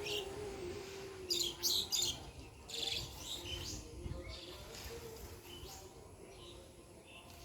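Birds chirping in short high bursts, thickest about a second and a half and three seconds in, then fainter, over a faint wavering low tone.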